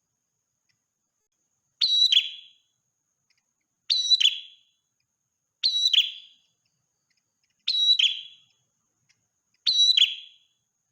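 Prenjak merah, a small songbird, giving a short, sharp, high call five times, about every two seconds. Each call is a quick run of piercing notes falling away at the end, with silence between calls.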